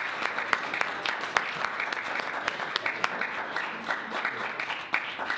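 Audience applauding, many hands clapping at once in a dense, steady patter.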